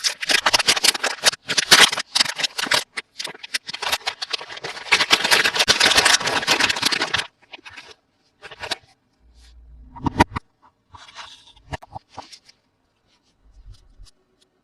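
Toy packaging being opened by hand: dense, rapid crinkling and tearing for about seven seconds, then it stops. After that come scattered light taps and clicks as the pieces are handled, with a soft thump about ten seconds in.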